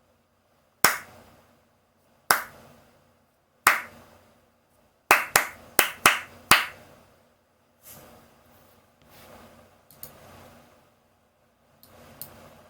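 Hand claps: three single claps about a second and a half apart, then a quick run of about six claps, followed by a few much fainter sounds.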